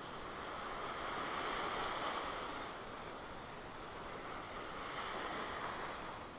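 Small waves breaking and washing up a sandy beach on a calm sea, the surf swelling about a second in and again near the end.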